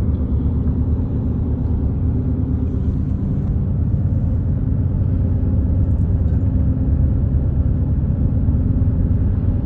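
Steady low rumble of a car driving along, with engine and road noise and no sudden changes.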